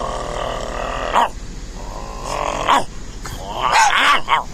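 Growling and grunting in three bouts, the last the loudest with a wavering pitch: a man barking and growling at his Boston terrier, and the dog growling back.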